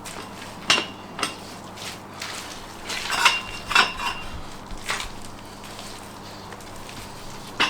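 Irregular sharp metal clinks and clanks, about six in the first five seconds, some ringing briefly, from steel tools and fittings knocking together while a ground screw is worked into the ground by hand.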